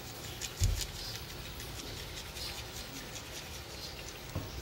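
Dry rub sprinkled from a small glass bowl onto racks of pork ribs: soft, irregular pattering and ticking of the granules landing on the meat and sheet pan. A dull thump about a second in, and a lighter one near the end.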